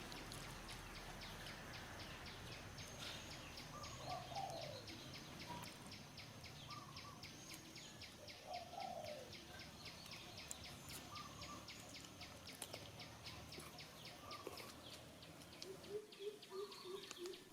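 Faint outdoor ambience of birds calling, with short chirps and two falling calls, over an even high-pitched pulsing at about four or five a second. Near the end comes a run of quick low notes.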